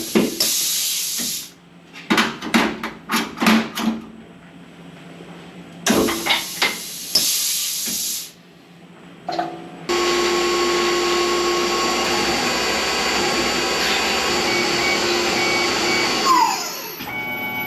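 Short hissing bursts and clicks, then a drilling machine's spindle running steadily for several seconds and winding down with a falling whine near the end.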